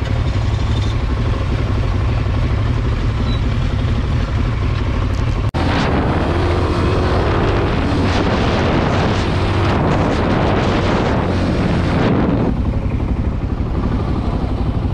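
Motorcycles riding along a road at nearly 80 km/h, heard from the rider's helmet camera: a steady low engine and road rumble under heavy wind rushing over the microphone. There is a sudden break about five and a half seconds in, after which the wind rush is much stronger until about twelve seconds in.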